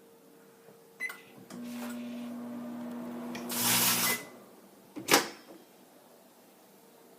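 Microwave oven started with a short keypad beep, then running with a steady hum for under three seconds, a loud hissing burst rising over its last second, before it stops with another beep. A sharp click about five seconds in, like the oven door being opened.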